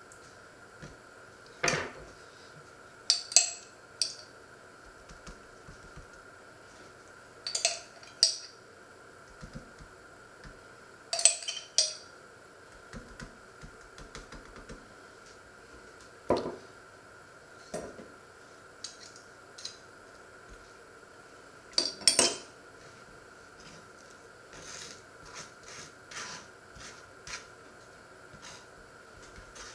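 Table knife clinking against a small jar and tapping on a wooden cutting board while spreading onto bread slices: sharp clinks in short clusters every few seconds, with softer scraping and tapping near the end.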